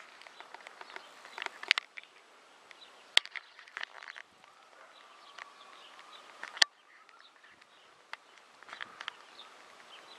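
Outdoor spring ambience of small birds chirping and singing, broken by a few sharp clicks that are the loudest sounds.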